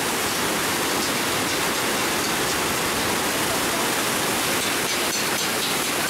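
Mountain-river waterfall: white water pouring over and between boulders, a loud steady rush.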